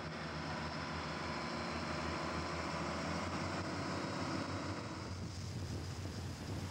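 Boat running fast across open water: a steady engine drone mixed with rushing water and spray. The sound thins a little about five seconds in.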